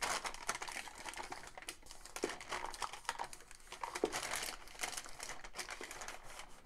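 Sheet of brown paper crinkling and crackling as hands smooth it, pull it taut and press it down over the back of a picture frame, with a few sharper snaps of the paper.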